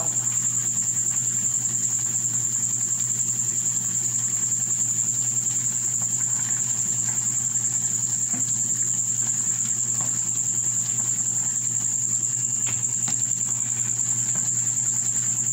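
A steady high-pitched tone over a low, even hum, with a few light knocks in the second half as a wooden spatula stirs noodles in broth in a wok.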